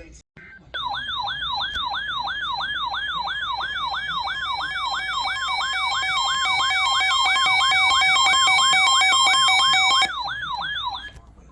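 Electronic siren-style alert tone: a rapid, repeating falling yelp about three times a second, joined about four seconds in by a steady two-tone attention signal. Both cut off abruptly, signalling an incoming emergency alert.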